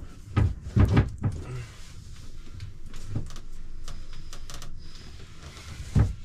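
A series of knocks and clunks from hands-on work, with hose and fittings bumping against wooden cabinetry. A louder thump comes near the end.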